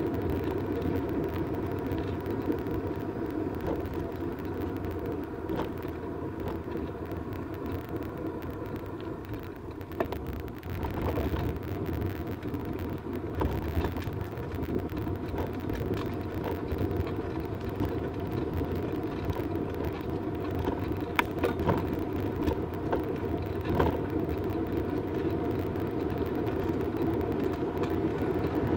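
Bicycle riding on a paved trail, heard from the handlebars: steady tyre rolling and wind noise, with scattered clicks and knocks from bumps in the path.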